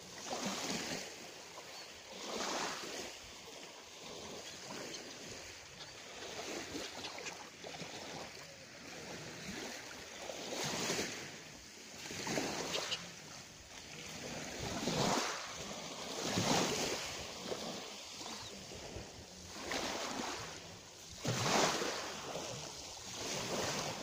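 Small sea waves washing onto the shore, a swell of noise every couple of seconds at an uneven pace.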